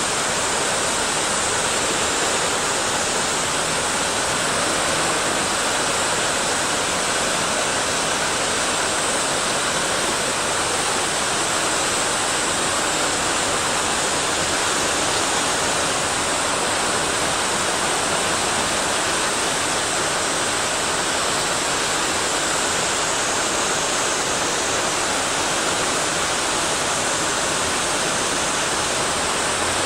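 Steady rushing of water in a mountain stream or waterfall.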